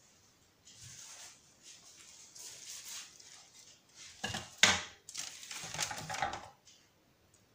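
Rustling and clatter of hands handling things on a kitchen counter, with one sharp knock about halfway through.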